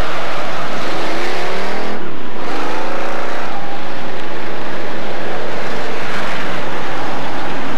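A pack of street stock race cars running at racing speed, the engines loud, with their pitch sliding down and then back up as cars go by.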